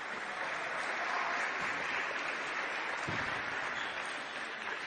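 Steady applause from the crowd in an indoor arena, with a single soft thump about three seconds in.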